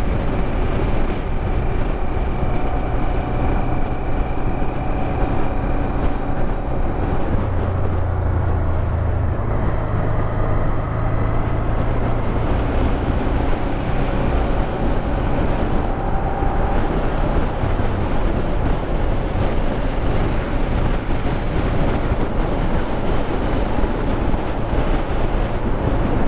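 Honda Transalp motorcycle riding at a steady pace: engine hum under a thick bed of wind and road noise, the engine tone strengthening briefly about eight seconds in.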